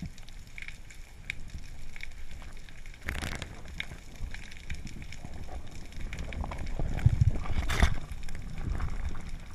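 Underwater sound through a camera housing while swimming through kelp: scattered crackling clicks over a rushing, sloshing water noise. There are two louder bursts of rushing noise, about three seconds in and near the end, as kelp blades sweep past the camera.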